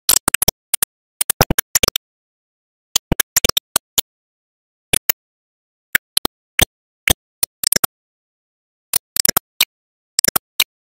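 Irregular short bursts of crackling noise cut off by dead silence between them: a glitching sound track that keeps dropping out.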